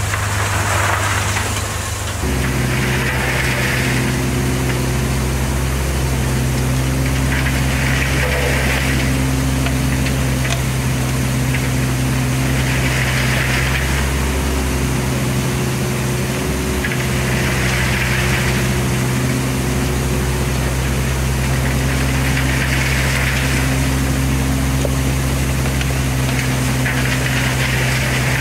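Hyundai 17Z mini excavator's diesel engine running steadily under hydraulic load while it digs and swings sand. A hiss recurs about every five seconds. The engine note changes suddenly about two seconds in.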